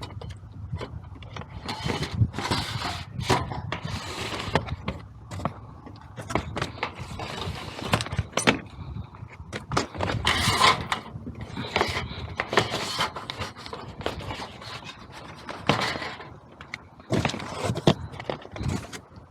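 Irregular scraping, rustling and knocks: hands-on work on an HVAC unit's panels and parts.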